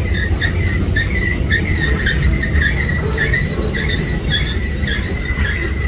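Freight train's boxcars rolling past close by: a steady low rumble of steel wheels on rail, with a high wheel squeal that pulses on and off again and again.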